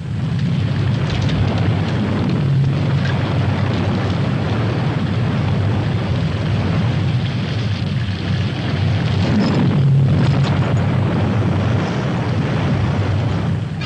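Torrential rain with muddy water rushing down a rock face: a loud, steady rushing noise over a heavy low rumble, cutting in suddenly.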